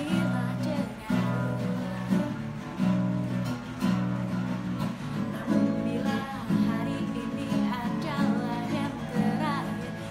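Acoustic guitar strummed in repeated chords while a woman sings along.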